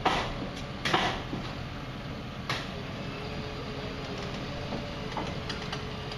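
Pile driver hammer blows: three sharp impacts with a brief ring, at the start, about a second in and about two and a half seconds in, over a steady machine hum.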